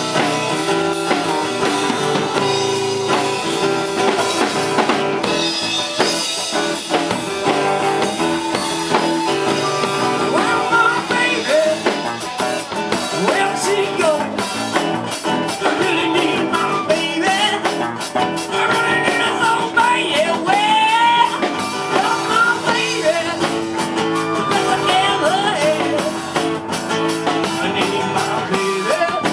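Live band playing a blues-rock tune: acoustic-electric guitar, electric bass and drum kit, with a lead melody sliding over the top from about ten seconds in.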